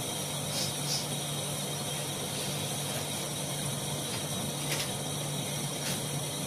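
Whiteboard marker writing on a whiteboard, a few faint short squeaky strokes, over a steady hiss and a low hum.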